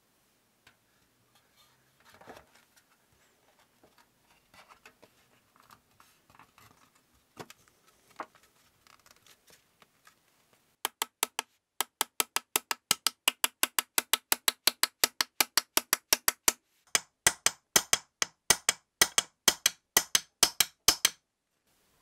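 Faint handling knocks as the board is fitted into the tray, then a small hammer tapping a thin nail into the tray's rim. The taps come quick and sharp, about three to four a second, pause briefly, then carry on at about five a second.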